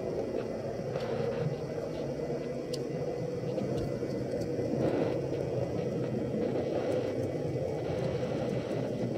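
HO-scale model train running along the track: a steady motor hum and wheel rumble picked up by a camera riding on the train, with a few faint clicks.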